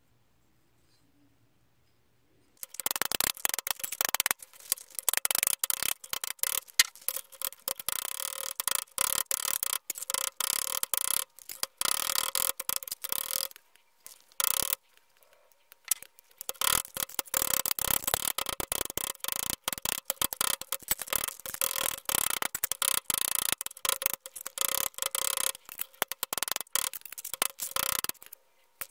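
Rapid scraping strokes on a workpiece, in two long spells separated by a pause of a few seconds about halfway through.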